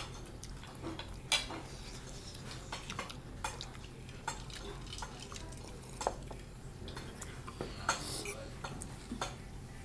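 A metal fork clinking and scraping against a ceramic plate during a meal, in scattered, irregular light clicks.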